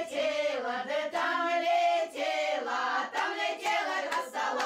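A group of Russian Old Believer women singing a folk song together in several voices, with hand claps.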